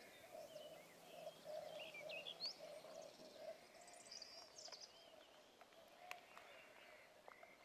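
Faint rural outdoor ambience with small birds chirping and a low pulsing tone repeating about twice a second that fades out partway through.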